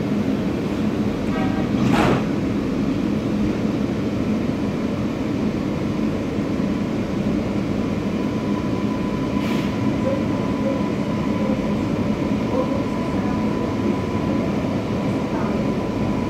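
Steady rumble and hum inside a CSR-built metro car as it runs on the rails, with a thin steady whine over it. A sharp knock comes about two seconds in, and a lighter click near the middle.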